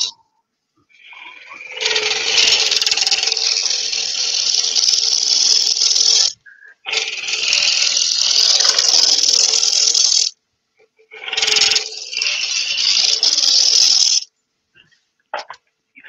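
Lathe gouge cutting into the inside of a small spinning wooden vessel, shavings scraping off in three long passes of a few seconds each, with short breaks between them.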